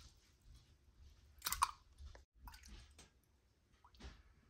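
A metal spoon dipping fish sauce from a steel pot into a small plastic tub: faint clinks and small liquid splashes, the loudest clink about a second and a half in.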